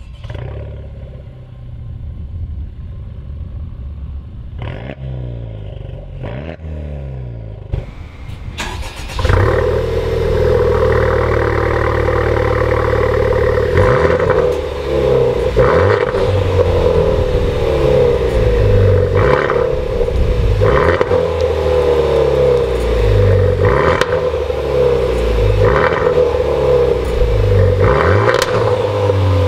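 Honda Civic Type R FK2's turbocharged 2.0-litre four-cylinder through a Martelius aftermarket exhaust: idling with two short throttle blips. About nine seconds in it is revved hard and held high, with a short sharp break every second or two.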